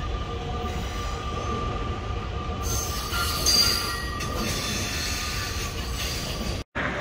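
Metra Electric bilevel electric commuter train running past and away, its steel wheels squealing on the rails in several steady high tones over a low rumble. The squeal is sharpest about three and a half seconds in. The sound cuts out abruptly just before the end.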